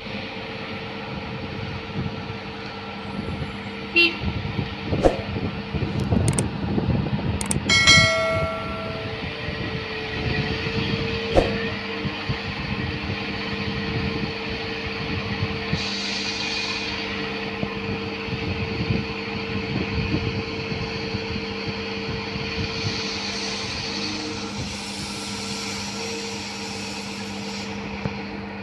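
Diesel engine of a Zoomlion truck-mounted crane running steadily, with a few sharp knocks and a short horn-like toot about eight seconds in.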